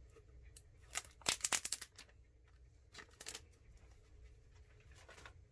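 Plastic wrapping crinkling and tearing in quick bursts as it is pulled off a new laptop battery, heaviest about a second in, with a few shorter crackles later.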